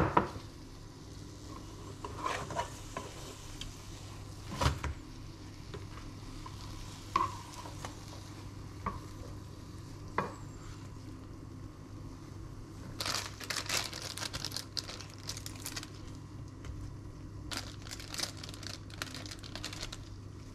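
A spatula clicks and knocks against a frying pan in scattered strokes while an omelette cooks. Later, thin plastic packaging crinkles in two bursts as sliced cheddar is pulled from its bag. A steady low hum runs underneath.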